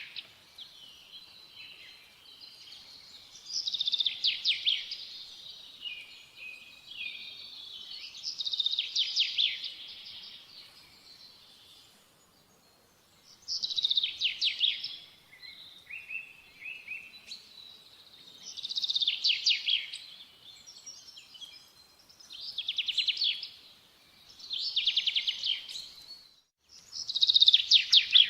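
A songbird singing, repeating a short, fast trilled phrase every few seconds with softer chirps between phrases.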